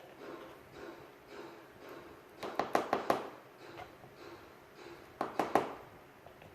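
A spoon knocks against a container in two quick runs of sharp taps, one about two and a half seconds in and another about five seconds in, with faint scraping between them.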